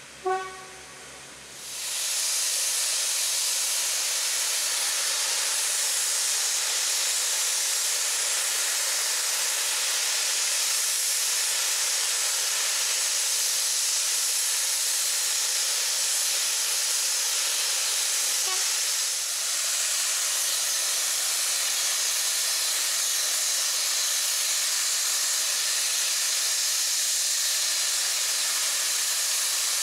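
Robert Stephenson & Hawthorns saddle-tank steam locomotive NCB No.49 letting off steam in a loud, steady hiss that starts about two seconds in and keeps going without chuffing. Right at the start there is a short, sharp whistle toot.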